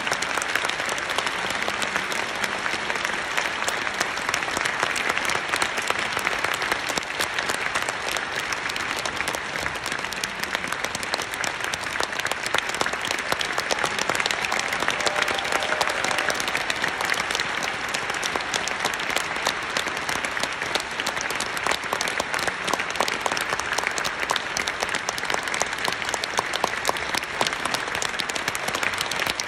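A large theatre audience applauding a ballet curtain call: dense, steady clapping that does not let up.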